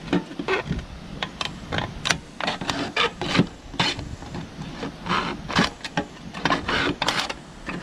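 A knife blade cutting down through the thin aluminium wall of a Coke can, an irregular run of sharp clicks and scrapes as the metal tears.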